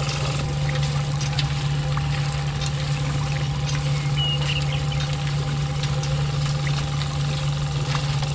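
Small motor of a miniature model engine running steadily with an even hum as it drives a tiny belt-driven machine.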